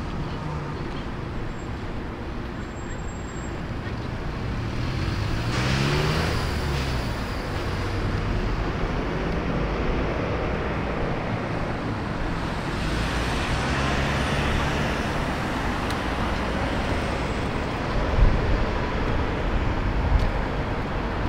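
City street traffic: a steady wash of passing vehicles, one accelerating away with a rising engine note about five seconds in and another passing a few seconds later. Two short thumps near the end.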